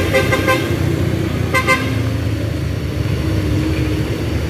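Vehicle horn sounding two short blasts, the first about half a second long and the second shorter about a second and a half in, over the steady low rumble of passing engines.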